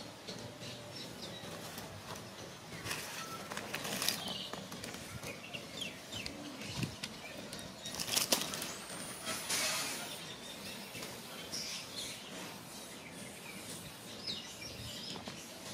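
Outdoor ambience of small birds chirping, with a few brief rustles a few seconds in and again around the middle.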